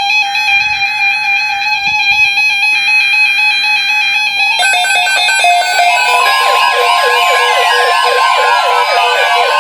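Several NOAA weather radio receivers sounding their alert alarms as a Severe Thunderstorm Watch is received. A steady electronic beep comes first, with fainter buzzing bursts of the broadcast's alert header underneath. About four and a half seconds in, more radios join with warbling, siren-like alarm tones, and from about six seconds a long steady alert tone runs under them.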